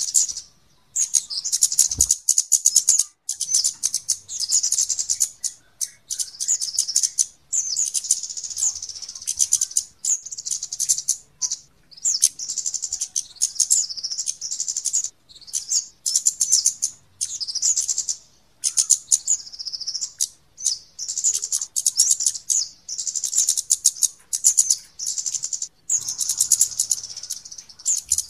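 Bird-lure recording of small-bird calls: rapid, high-pitched 'cit' chirps in dense bursts a second or two long with brief pauses between, the 'kemade' / 'cit keres' call played to draw in flowerpeckers.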